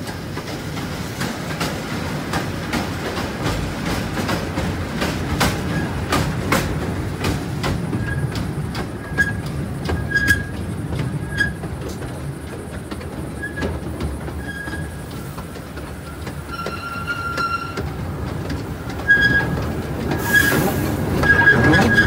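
Taipingshan forest railway's small narrow-gauge tourist train running, a steady rumble with wheels clacking over the rail joints. From about a third of the way in, short high squeals from the wheels come again and again.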